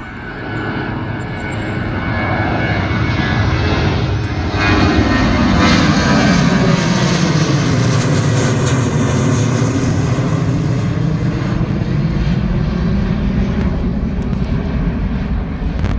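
Boeing 737-800's CFM56 jet engines at take-off power as it departs. The noise builds over the first few seconds, is loudest about five seconds in, and has a sweeping tone that falls and rises again as the plane passes.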